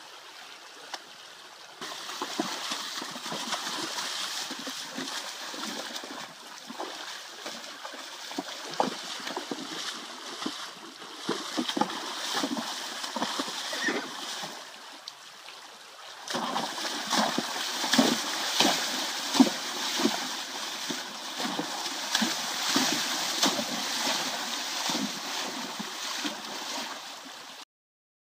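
Friesian horses splashing in a shallow stream: irregular heavy splashes over the rush of the water. It gets louder about two seconds in and louder again around halfway, then cuts off abruptly just before the end.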